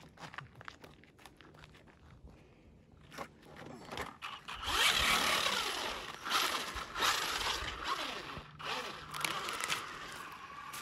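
A few faint footsteps on gritty ice, then an RC truck's brushless electric motor whining up and down in pitch as it is driven hard, with its tyres scrabbling over ice and gravel.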